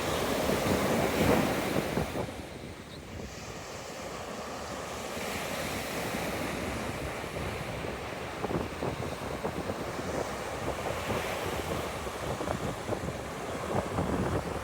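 Ocean surf breaking and washing up a sand beach, with wind buffeting the microphone. A wave surges loudest about a second in, eases off, then the wash builds again.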